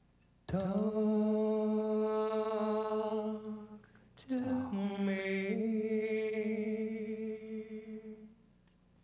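A voice singing two long held notes with no instruments, a slight waver in each, the first lasting about three seconds and the second about four.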